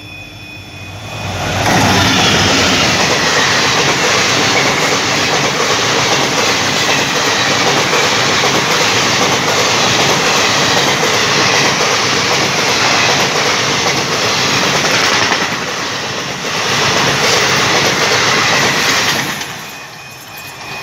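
Passenger train of ICF coaches passing close by at speed: a loud, steady rush of wheel and coach noise that builds about a second and a half in, dips briefly, then falls away shortly before the end as the last coach goes by.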